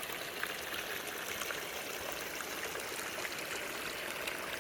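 Stream water running steadily, a continuous rushing with small splashes.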